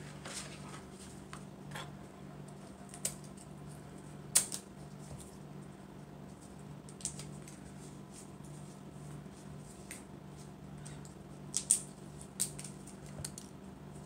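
Scattered small clicks and crinkles of a contact lens solution carton and its bottle being opened by hand, with a few sharper clicks about four seconds in and again near the end, over a low steady hum.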